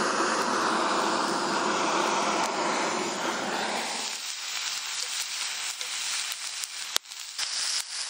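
Beef steak sizzling loudly in a hot cast-iron frying pan over a campfire. The sizzle eases after about four seconds into a quieter hiss with scattered crackles and one sharp click near the end.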